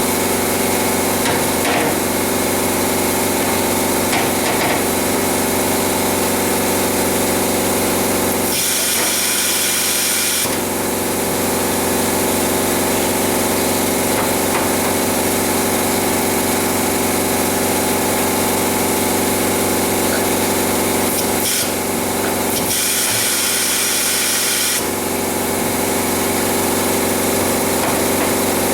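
Steady hum of workshop machinery, with two hissing bursts of about two seconds each: one about a third of the way in and one near the end.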